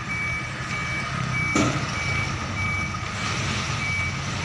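A vehicle's reversing alarm beeping evenly, about three single high beeps every two seconds, over a low engine running in a truck yard. A single sharp knock sounds about a third of the way in.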